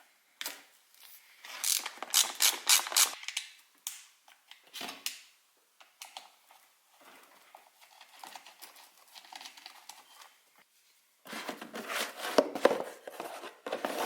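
Metal hand tools and screws clicking and scraping against a car distributor as its screws are taken out and swapped. A quick run of sharp clicks comes about two seconds in, scattered clicks follow, and a denser clatter comes near the end.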